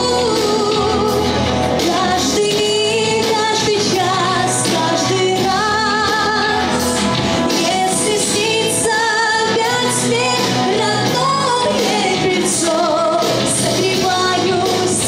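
A young woman singing a song into a handheld microphone with instrumental accompaniment, her held notes wavering in vibrato.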